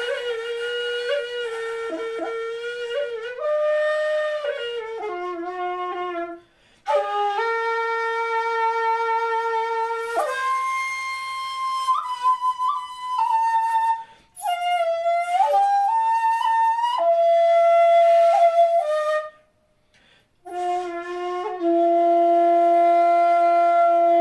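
Jinashi shakuhachi, a 1.5-shaku bamboo flute pitched in F, played solo in long held notes with pitch bends, wavering ornaments and breathy attacks. It stops for breath a few times and ends on a long steady low note.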